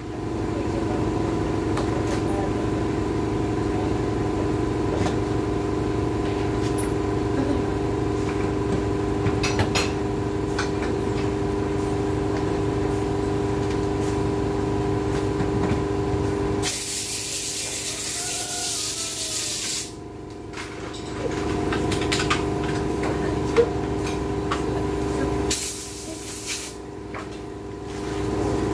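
A steady machine hum made of several fixed tones over a low rumble, interrupted twice by a few seconds of loud hissing while the hum drops away: about two-thirds through, and again near the end.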